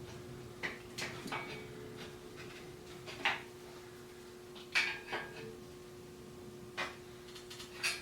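Scattered short knocks and clinks, about eight of them, of hand tools working at a stuck plastic wheel hub on a rusty hand truck axle, over a faint steady hum.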